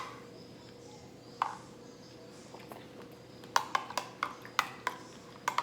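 Spoon clinking against a bowl while eating: a couple of single clinks, then a quick run of clinks in the second half, over a faint steady hum.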